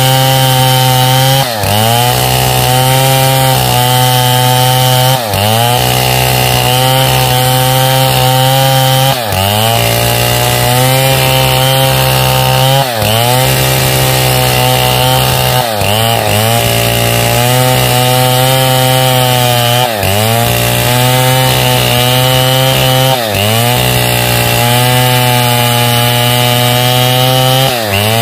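Stihl 070 two-stroke chainsaw running under load as it rips lengthwise through a pine log. The engine note dips briefly and picks up again every few seconds.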